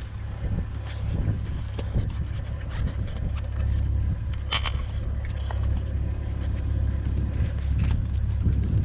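A vehicle driving over rough ground, its engine and road noise a steady low rumble, with a few light knocks and rattles.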